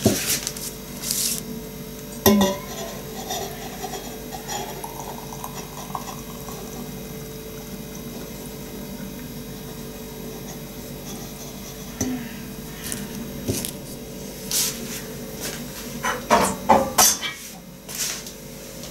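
Hot water poured from a kettle into a small clay teapot, the pitch of the pour rising as the pot fills. Sharp clinks of kettle and pottery come in the first couple of seconds and again over the last several seconds.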